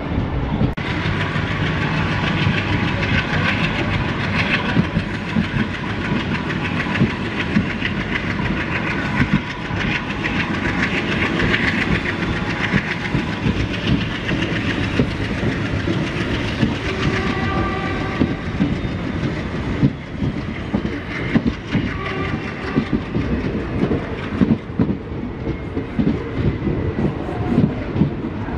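Moving diesel-hauled express train, pulled by an ALCO WDG-3A locomotive, with wheels clattering over the rail joints, heard from on board. Short tonal sounds cut in a couple of times in the second half.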